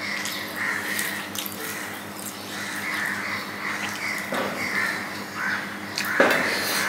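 Crows cawing over and over in the background, with the soft sounds of rice being mixed by hand on a steel plate and a mouthful being eaten; a louder sound comes a little past four seconds in and again near the end.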